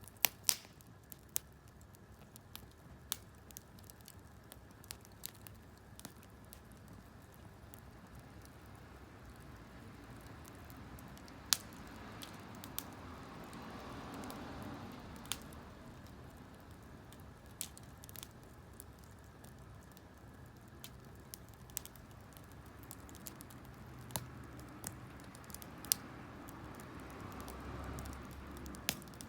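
Wood campfire crackling: sharp, irregular pops over a soft steady hiss.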